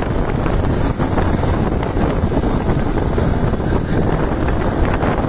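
Steady wind rush buffeting a chest-mounted microphone on a motorcycle riding at speed, with the bike's engine and road noise running underneath.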